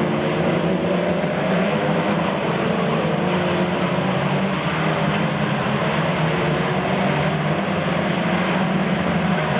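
Saloon stock car engine running steadily, a constant drone with no clear revving up or down.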